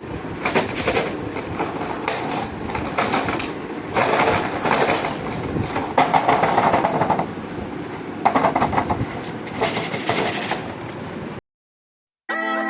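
Plastic toy packaging crinkling and rustling in irregular bursts about a second long, followed by a brief silence and music starting just before the end.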